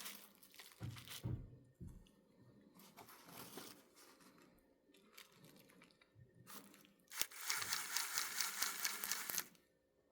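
Small electric model locomotive mechanism running for about two seconds with a rapid, clattering grind, then cutting off abruptly. The stop is taken for the drive locking up. Before it there are scattered light knocks and handling sounds.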